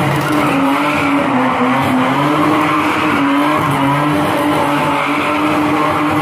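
Sports car drifting in tight donuts, its engine held at high revs in one steady, slightly wavering note, with tyres squealing on the tarmac.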